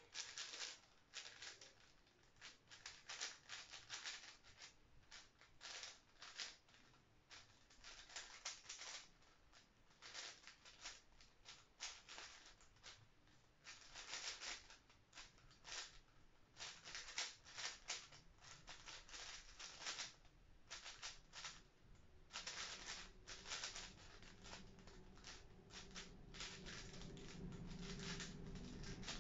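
Plastic 5x5 speed cube being turned fast, with quick runs of light clacking as the layers snap round, broken by brief pauses.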